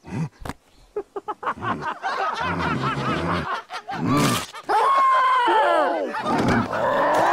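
A man laughing: quick short bursts at first, then long, loud, high-pitched cries that swoop up and down in pitch.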